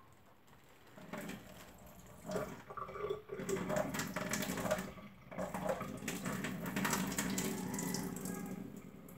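Kitchen tap running into a stainless steel bowl in a steel sink, water splashing as vegetables are rinsed and the bowl is tipped out, with a few light knocks of the bowl. It starts about a second in and eases off near the end.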